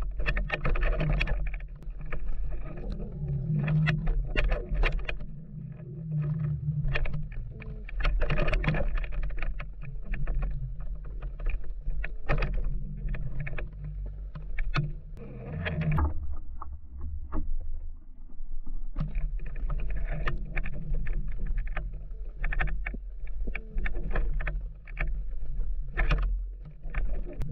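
Water noise around a drifting fishing kayak: a steady low rumble with many irregular knocks and clicks, easing off briefly about two-thirds of the way through.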